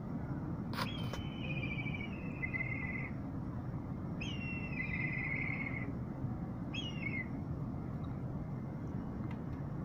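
A bird of prey gives three quavering, whistled trills, each sliding slightly downward; the first two are long and the third is short. Two sharp clicks come near the start of the first call, over a steady low background rumble.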